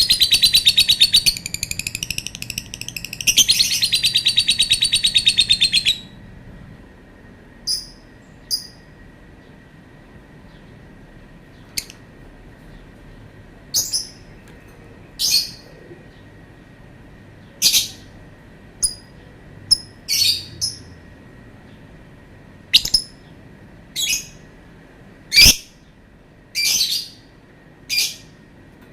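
Lovebird giving a long, rapid, high-pitched chattering trill for about the first six seconds, easing off briefly partway through, then a string of separate short, sharp chirps every second or two.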